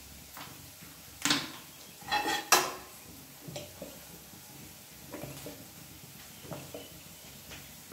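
Steel ladle clanking against an aluminium pressure cooker, a few sharp knocks with the loudest about two and a half seconds in, followed by lighter clicks and taps as oil is poured into the pot from a bottle.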